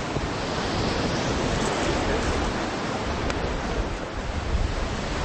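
Ocean surf: a steady rush of breaking waves and whitewater.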